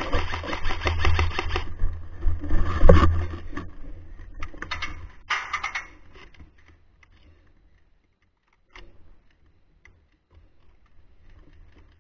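Airsoft guns firing in rapid clicking bursts, loudest about three seconds in and again at about five and a half seconds, then only scattered clicks.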